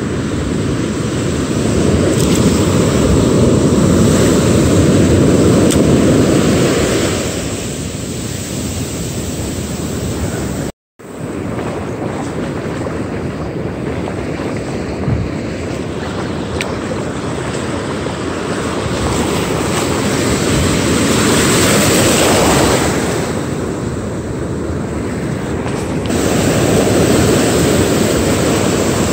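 Ocean surf breaking and washing up the beach, swelling louder and easing off several times. The sound drops out briefly about eleven seconds in.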